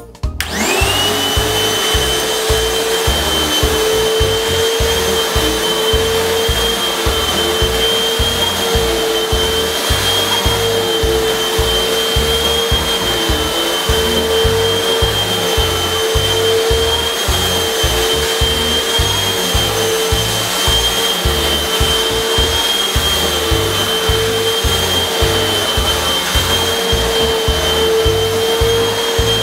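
Hoover WindTunnel 2 bagless upright vacuum cleaner switched on: the motor comes up to speed within the first second, then runs steadily with a constant whine while it vacuums carpet.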